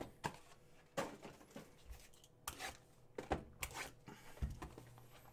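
Handling of a cardboard trading-card box and its plastic-wrapped packs: scattered taps, crinkles and short tearing rustles.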